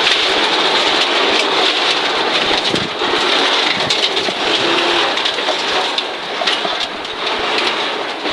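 Inside the cabin of a 1983 Audi Quattro Group B rally car at speed on gravel: a dense, steady hiss and rattle of gravel and stones pelting the underbody and wheel arches, full of sharp clicks, over the car's turbocharged five-cylinder engine.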